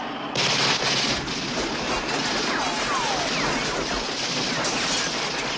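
Heavy automatic gunfire from a car, a dense continuous volley that breaks out suddenly about half a second in and keeps going, with a few falling whistles mixed in.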